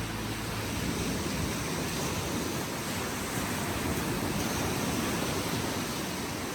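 Steady rushing wash of Lake Superior waves on the beach, an even noise with no distinct breaks.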